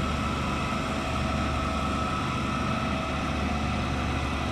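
Truck-mounted concrete boom pump's diesel engine running steadily, a low drone with a steady high whine over it.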